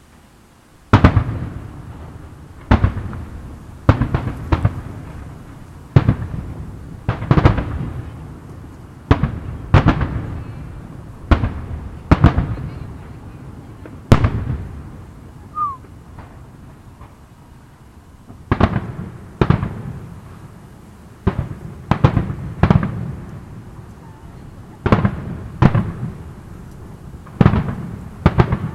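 Aerial firework shells bursting in a long series of loud bangs, roughly one every second, each followed by a rolling echo. The bangs begin about a second in and pause for a few seconds near the middle.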